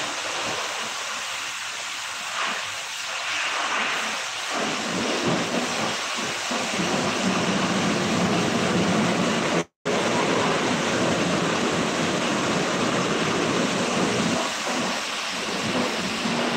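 High-pressure washer jet spraying water onto a pickup truck's body: a steady hissing rush, broken by a split-second gap about ten seconds in.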